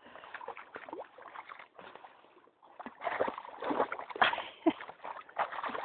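Water splashing and sloshing in irregular bursts, louder in the second half.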